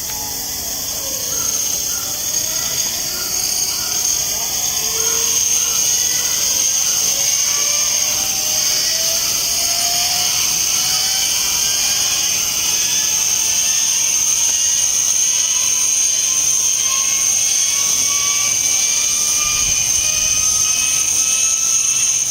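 The Zero fighter's hand-cranked inertia starter being wound up: a whine that climbs steadily in pitch as its flywheel gathers speed, with a rhythmic pulsing from the cranking in the first few seconds.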